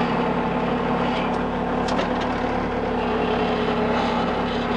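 Bobcat T300 tracked loader's diesel engine running steadily with an even hum.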